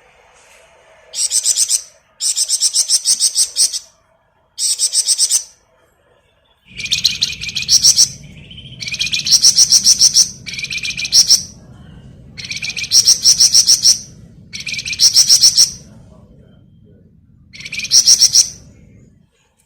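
Flamboyan songbird singing its 'ngebren' song: a run of high-pitched phrases, each a dense rapid trill about a second long, repeated with short pauses. A low rumble sits underneath from about seven seconds in until near the end.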